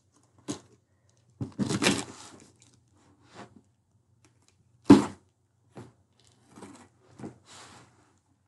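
A taped cardboard shipping box being opened by hand: packing tape tearing and cardboard scraping and rustling in short bursts, with one sharp knock against the box about five seconds in.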